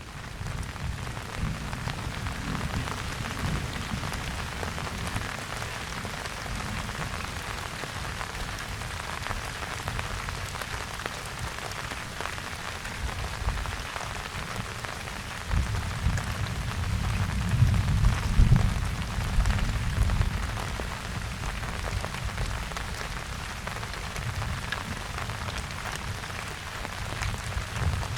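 Steady rain falling, with many fine drop ticks. A low rumble of distant thunder swells about halfway through and fades away again.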